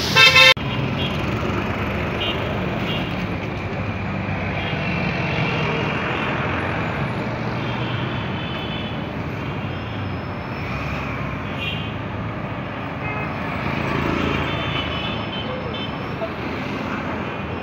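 Steady rumble of road traffic and construction machinery around an elevated metro viaduct site, opening with a brief, very loud horn blast.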